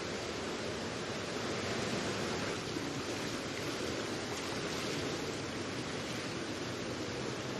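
Steady, even background noise of an indoor diving-pool hall, with no distinct sounds standing out.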